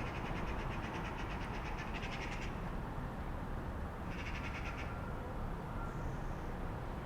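Songbird singing rapid trills of quick repeated high notes, one long trill at the start and a shorter one about four seconds in, over a steady low rumble of street traffic.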